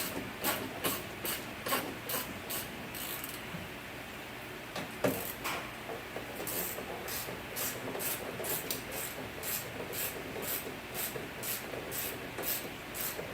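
Ratchet wrench clicking in quick back-and-forth strokes as the window regulator's mounting bolts are loosened, about two clicks a second. It pauses briefly near the middle, with a single knock about five seconds in, then starts again.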